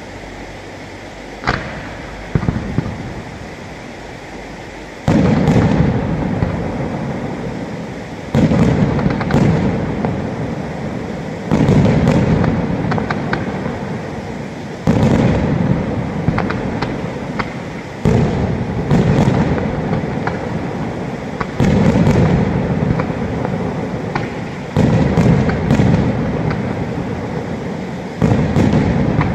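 Aerial firework shells bursting: a single sharp bang near the start, then from about five seconds in a loud boom roughly every three seconds, each echoing away, with sharper pops and crackles between.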